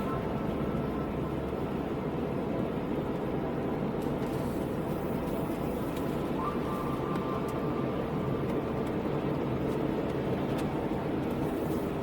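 Steady car noise, a low even rumble of engine and road, with a faint thin whine coming and going.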